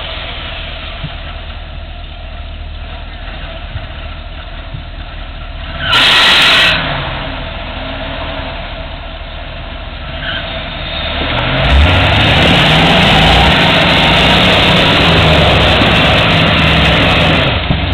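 1986 Ford Bronco's fuel-injected engine idling, then revved hard for about six seconds from roughly two-thirds of the way in as it strains against a tow strap pulling a stuck truck. A brief loud rush of noise about six seconds in.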